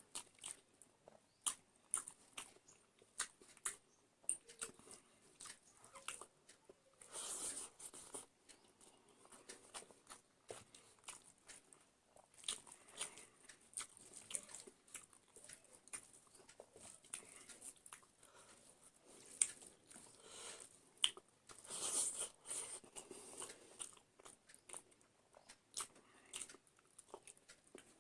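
A person eating close to the microphone: chewing and crunching bites with many sharp mouth clicks, and two louder stretches of crunching, about seven and twenty-two seconds in.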